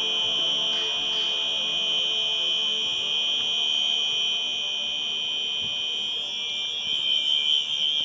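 11 kV control panel trip alarm sounding as a continuous high-pitched electronic tone, signalling that the vacuum circuit breaker has tripped on a fault. The tone turns rougher and wavers about six seconds in.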